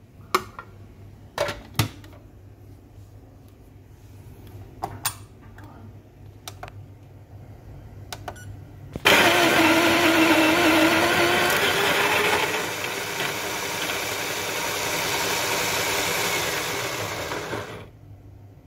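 Baratza Sette 270W conical burr grinder grinding light-roast coffee beans straight into a portafilter. It starts suddenly about nine seconds in, runs loud and steady for about nine seconds with a low motor tone, and stops near the end. Before it, a few sharp clicks and knocks.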